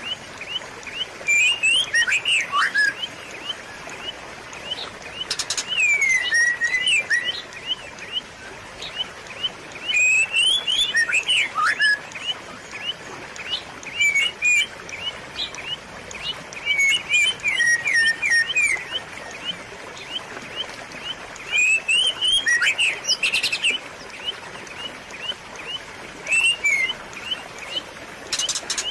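A songbird singing in short phrases of quick chirps and sweeping whistles, a new phrase every few seconds. Between the phrases a steady hiss of trickling water runs underneath.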